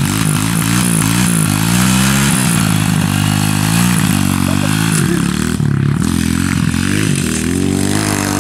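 Small single-cylinder pit bike engine revved up and down repeatedly, its pitch wavering quickly, then climbing steadily near the end as the bike pulls away.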